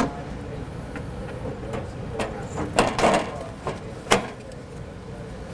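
Induced draft motor being fitted by hand onto a furnace's sheet-metal inducer housing: a series of sharp clicks and knocks as it is pushed and seated, the loudest cluster about three seconds in and another sharp knock about a second later.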